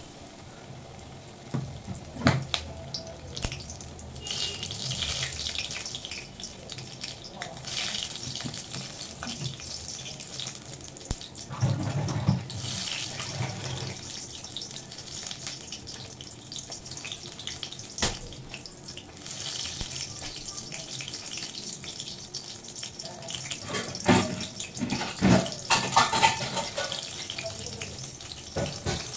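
Battered water-lily-stem fritter shallow-frying in hot oil in a wok: a steady sizzle with scattered crackles and pops, louder pops soon after the start and a cluster of them near the end.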